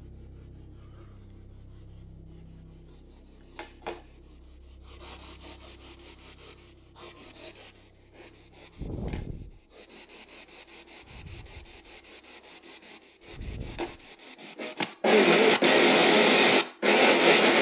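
Spirit box static: loud, rasping radio hiss cutting in about three seconds before the end, with one brief dropout. Before it come a few low, dull thumps of the device being handled.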